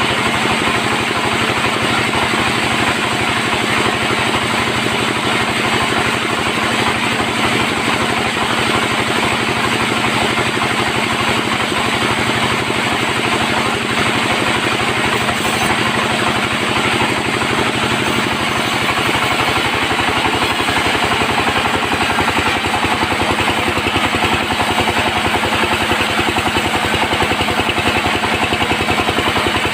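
Sawmill bandsaw running steadily and loudly while sawing mahogany, with a fast, even pulsing under a steady hum. Its tone shifts and grows slightly louder about twenty seconds in.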